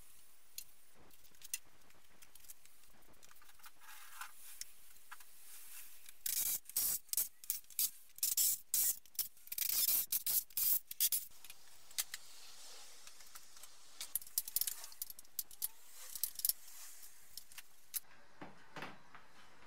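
Hand tools and small metal fasteners clinking, rattling and scraping as car bumper parts are taken apart, with a dense run of clatter in the middle and scattered clicks after it.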